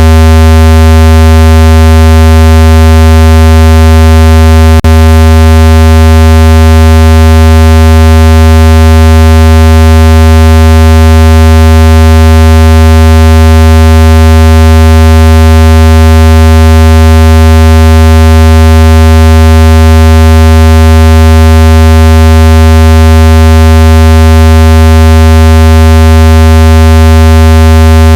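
Very loud, steady, synthesized low buzzing tone with a stack of overtones, played to vibrate water out of a phone speaker. A brief click breaks it about five seconds in.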